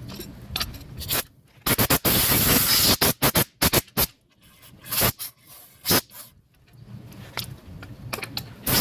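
Irregular scraping strokes from hand work on a drum brake assembly, a few short ones and then a long loud stretch about two seconds in, followed by scattered short scrapes and clicks.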